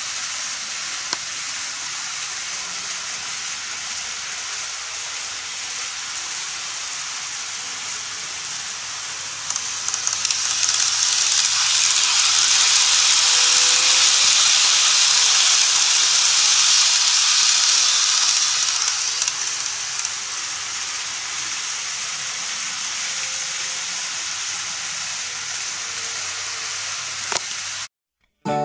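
KATO model train running on plastic sectional track: a steady hissing rumble of wheels and motor that swells as the train passes close by in the middle, then eases back. It cuts off suddenly near the end.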